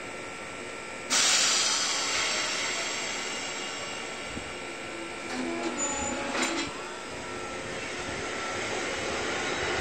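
Kishigawa Line 2270 series electric train departing: a sudden loud hiss of compressed air about a second in, fading over several seconds, then a few clicks and short tones, and its running noise rising slowly as it starts to move.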